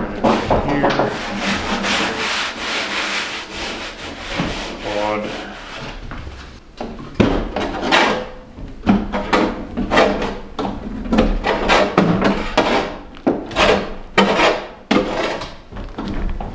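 Steel door skin of a 1953 Nash Ambassador being worked from the inside to push out a dent: rubbing and scraping for the first several seconds, then a run of sharp knocks about once a second.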